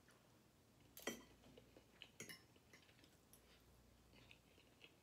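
A few light clinks of forks against plates, the loudest about a second in and another just after two seconds, with quiet between.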